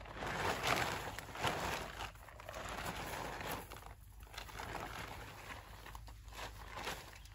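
Nylon tent fabric rustling as it is lifted and spread out over the ground, in several swells, loudest in the first two seconds.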